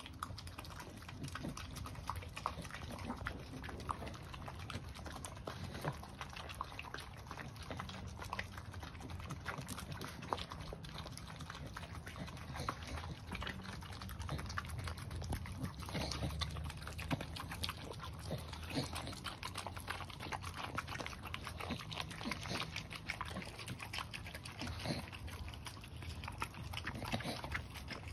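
Two Staffordshire Bull Terriers licking and slurping raw food off rubber LickiMat lick mats: a steady, continuous run of wet licks and smacks.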